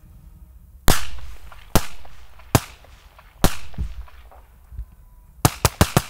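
9 mm rounds from an MP5 cracking past at close range: four single sharp cracks about a second apart, several trailing off, then a quick string of four near the end. The little crack marks the rounds as supersonic, unlike the subsonic rounds fired before.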